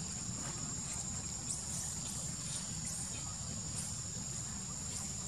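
Insects trilling: one steady high-pitched tone, with a few faint short high chirps and a constant low rumble underneath.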